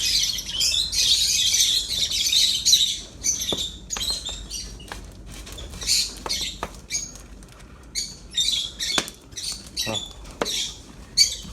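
A flock of lovebirds in an aviary chattering and screeching, with rapid shrill chirps overlapping, busiest in the first few seconds.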